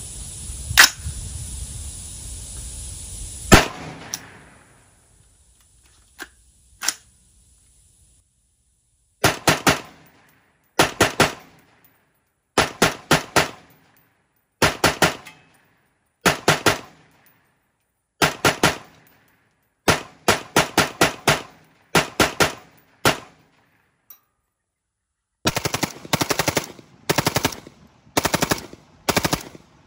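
Rapid strings of rifle fire from an AR-type 7.62x39 rifle with an external piston gas system, in quick groups of three or four shots about every two seconds, and denser strings near the end. The first few seconds hold a steady hiss broken by two single shots.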